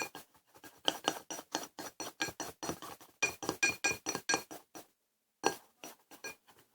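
A spoon clinking rapidly against the side of a bowl while stirring slime mixture, about four to five ringing clinks a second; it pauses briefly near the end, then a few more clinks follow.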